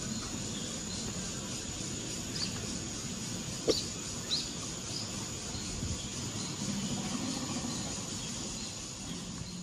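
Outdoor ambience: a steady high insect drone with a few faint, short bird chirps, and one sharp click a little past a third of the way in.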